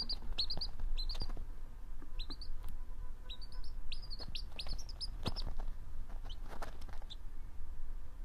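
Baby chick peeping: short high peeps in quick runs that stop near the end, over a steady low hum.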